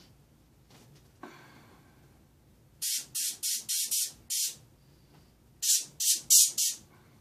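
Airbrush spraying paint in short hissing bursts: six quick bursts about three seconds in, then four more after a short pause.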